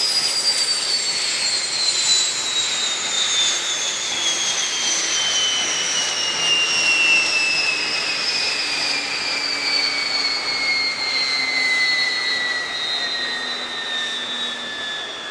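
Kaman K-MAX helicopter's turboshaft engine winding down after shutdown: a high turbine whine falling slowly and steadily in pitch, with an even rush of noise beneath it.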